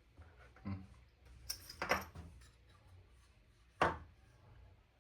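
A few light clicks and knocks from handling the parts of an airsoft rifle's cylinder and piston assembly. There is a small cluster of clicks about two seconds in and a sharper knock near four seconds in.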